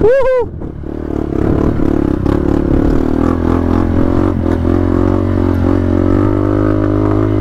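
Trail motorcycle engine running under throttle at fairly steady revs, with a short sharp rise and fall in pitch right at the start.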